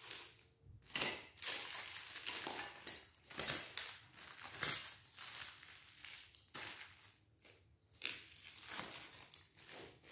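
Small clear plastic bags crinkling in irregular rustles as thin metal letters and numbers are unwrapped and laid out, with light metallic clinks.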